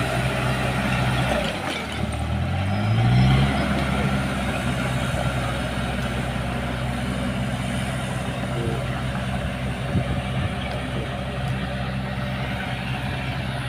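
Komatsu bulldozer's diesel engine running steadily under load. About two seconds in its pitch drops briefly, then rises back up as it revs.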